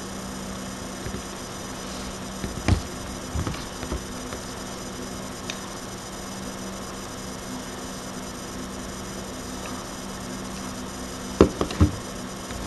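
Steady hiss and electrical hum from a webcam microphone, with a few short knocks about three seconds in and a louder pair near the end.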